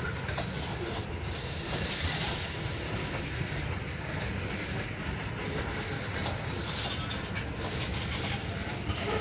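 Loaded ethanol tank cars rolling past, their steel wheels making a steady rumble on the rails. About a second in, a high wheel squeal sounds for roughly two seconds and then fades.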